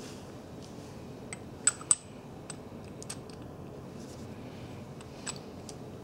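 Steel rebar coupler parts clinking as they are handled and threaded together: a few sharp metallic clicks, the two loudest close together a little under two seconds in, over a steady low hiss.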